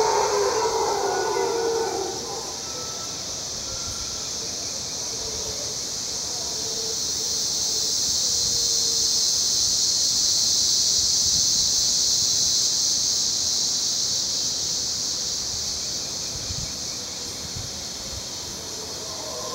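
Mantled howler monkeys howling in the first couple of seconds, dying away to a few faint calls and starting up again at the very end. Under them runs a steady high-pitched insect drone that swells in the middle and falls back.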